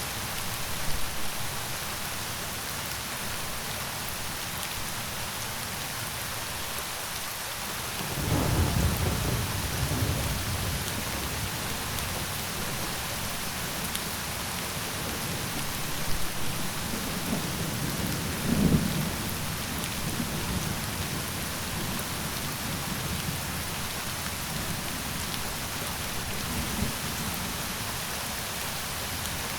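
Steady rain falling, with rolls of thunder rumbling in twice about a third of the way in and again past the middle, and a faint rumble near the end.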